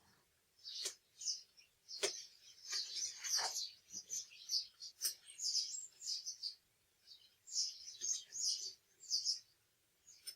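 A small bird chirping and twittering in many short, high-pitched calls, broken by a few sharp clicks.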